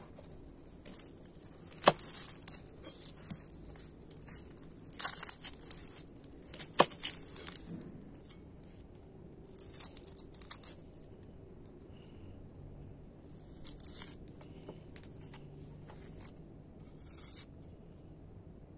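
Red onion being peeled with a kitchen knife on a wooden cutting board: the dry papery skin crackles and tears in short repeated bursts, with three sharp taps of the blade in the first half.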